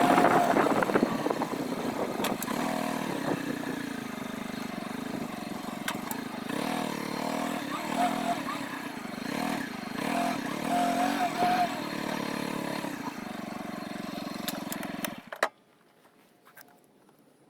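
An engine running with its pitch wavering up and down, stopping abruptly near the end.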